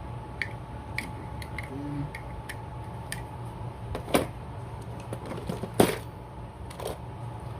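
Clicks and taps of fishing tackle being handled and rummaged through in a tackle box, with two louder knocks about four and six seconds in.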